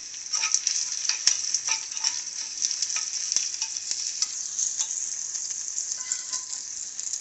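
Garlic, curry leaves, dry red chilli and mustard seeds sizzling in hot oil for a tempering, with frequent sharp crackles and pops as they are stirred in the pan.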